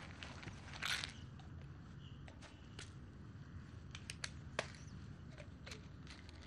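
Small sharp clicks of a pill container being handled and opened, several close together about four seconds in, with a short rustle about a second in, over a low steady outdoor rumble.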